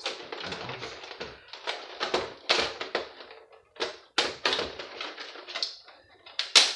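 Irregular clicks, taps and short scrapes of hand tools against the metal and plastic parts of a PlayStation 3 being taken apart.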